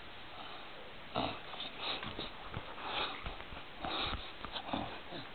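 A dog sniffing in a run of short, irregular bursts beginning about a second in, with a few soft knocks among them.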